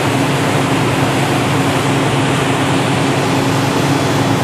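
Motorboat engine running steadily at cruising speed, a constant low hum, over the steady rush of water churned up in the wake.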